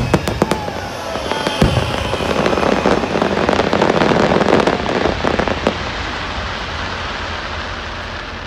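Fireworks bursting: a few sharp bangs in the first seconds, then a dense stretch of crackling that thins out and fades toward the end.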